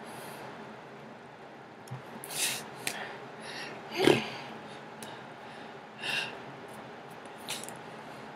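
A person's short, sharp breaths through the nose, a few seconds apart and the loudest about four seconds in, over a steady background hiss.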